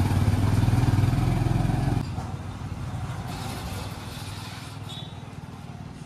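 A vehicle engine runs close by with a steady, rapid pulsing note. About two seconds in it drops off sharply, then fades away.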